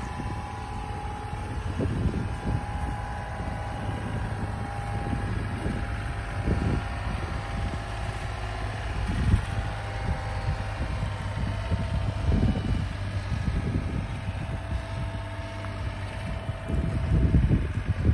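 Wind buffeting the microphone in repeated gusts over a steady low rumble, with the gusts strongest near the end.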